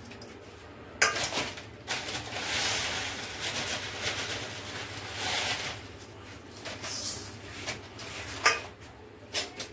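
Dry vermicelli poured into an empty aluminium kadhai: a rustling patter of thin dry strands sliding and landing on the metal, in two pours. Sharp metal clinks of the bowl against the pan come about a second in and again near the end.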